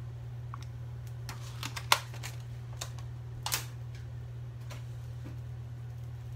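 Scattered light clicks and taps of ingredients and a pot being handled. The sharpest click comes about two seconds in and another small cluster about three and a half seconds in, over a steady low hum.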